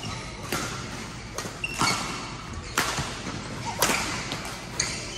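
Badminton rally: racket strings striking the shuttlecock about once a second, sharp and echoing in a large hall, with brief shoe squeaks on the court floor between the shots.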